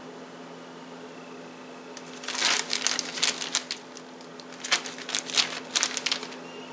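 Bag of brown sugar crinkling and rustling in two bouts of a second or so each, as sugar is shaken out over the cake topping.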